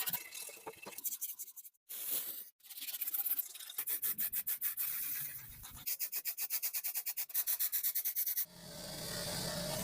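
Hand sanding or scrubbing of rusty lamp parts: quick back-and-forth rubbing strokes in several short cuts, with a fast, even run of strokes about two-thirds of the way through, giving way to a steadier hiss near the end.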